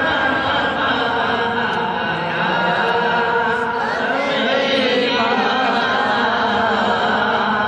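A man reciting an Urdu naat, a devotional song in praise of the Prophet, in a continuous melodic chanting voice with long gliding phrases.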